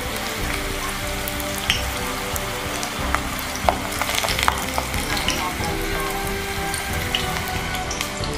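Okra deep-frying in hot oil in a small stainless steel saucepan: a steady sizzle with frequent sharp pops and crackles.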